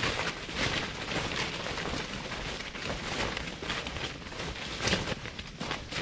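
Footsteps of several people walking through dry leaf litter and undergrowth: irregular crunching and rustling of dead leaves, with a louder crunch about five seconds in.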